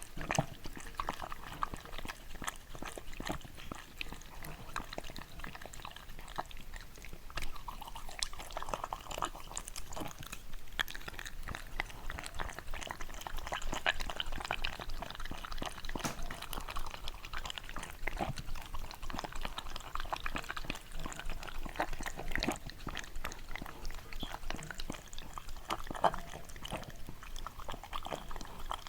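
Close-up mouth noises from a Shiba Inu: a dense, irregular run of small wet clicks and smacks.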